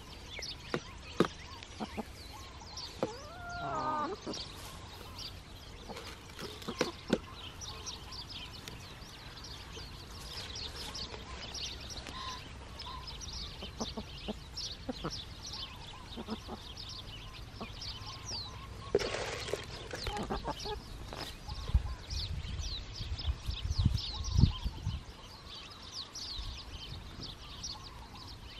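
Hens feeding on grass, with sharp pecking clicks and a wavering hen call about four seconds in. Quick high bird chirps run behind them throughout, and a few low thumps come past the middle.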